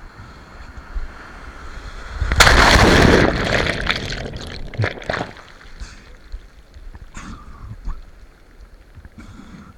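Seawater splashing and rushing, a loud wash of surf for about three seconds from roughly two and a half seconds in, then dying down to faint sloshing.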